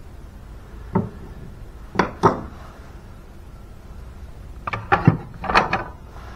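Sharp knocks and clatter of a removed metal engine cover and a screwdriver being handled and put down on a wooden workbench: a single knock about a second in, two close together near two seconds, and a quick cluster near the end.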